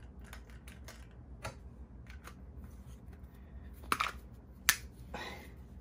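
Small plastic clicks and taps from an Oral-B kids' electric toothbrush being put back together by hand, as an AA battery and the red bottom cap are fitted into the handle. There are two louder, sharp clicks about four seconds in and just under a second later.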